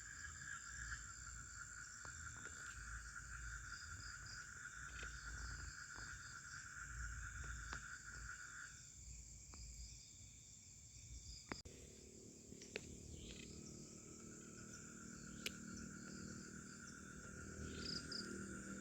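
Night forest insects, crickets or similar, chirring in steady high drones. One of them breaks off a little before halfway and starts again a few seconds later. A few sharp clicks sound near the middle.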